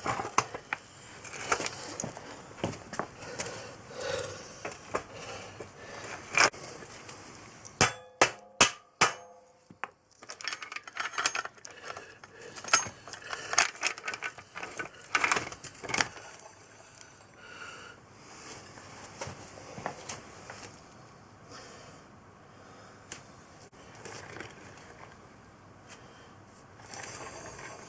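Metal tools and parts clinking and knocking on and off as a motorcycle's rear axle and nut are fitted, with a quick run of sharp, ringing metallic clinks about eight seconds in.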